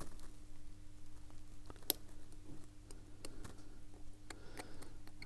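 Faint small clicks and scrapes of a watchmaker's screwdriver working a tight keyless-works screw in a vintage watch movement, with one sharp click about two seconds in. A steady low hum sits underneath.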